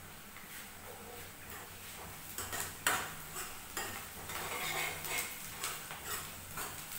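Metal ladle scraping and clinking against a metal kadhai as food is stirred in it. The clinks start about two and a half seconds in, with the loudest knock about a second later, over a low steady hum.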